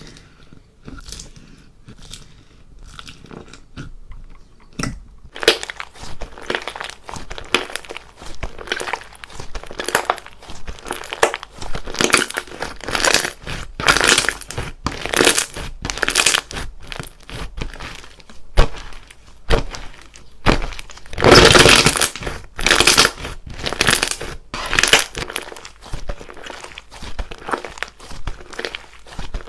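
Crunchy slime being squished, giving a dense run of crackles and crunches that is faint at first and gets louder about five seconds in.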